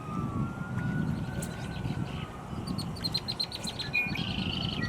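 Small birds chirping in quick runs of short notes, the busiest runs in the second half, over wind buffeting the microphone. A faint wailing tone rises and falls slowly underneath.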